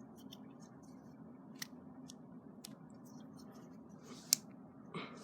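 A few light clicks from an automatic knife being handled, with one sharper click about four seconds in, over a low steady hum.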